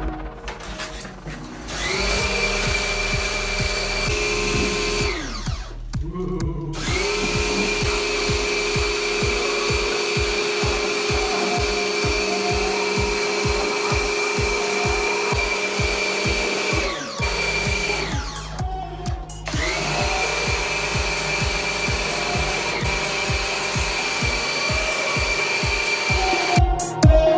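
Custom-built PowerJet pressure washer running in three bursts, its motor whine rising as it starts up and falling as it cuts out between bursts. The jet is spraying chemical wash water through an air-conditioner's coil.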